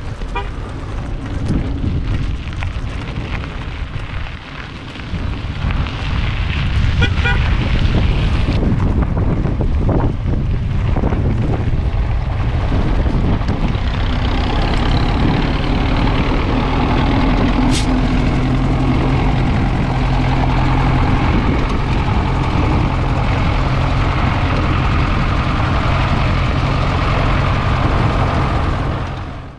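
Truck engine running steadily close by as a lorry piled high with hay drives along a gravel road, its engine note clearest and steadiest in the second half over a heavy low rumble.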